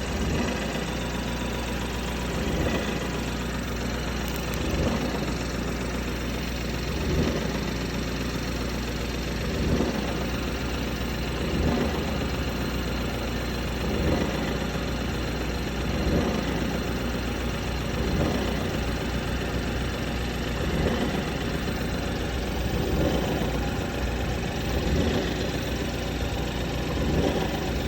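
BMW F30 330e's four-cylinder petrol engine idling, with a recurring swell in its noise about every two seconds. The owner cannot place the cause of this idle noise.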